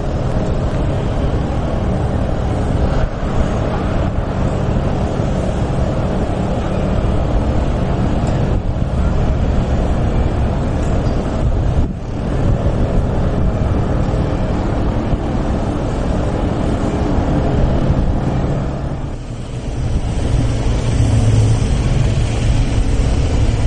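An engine running steadily, a loud low rumble with a steady hum through it, dipping briefly near the end before picking up again.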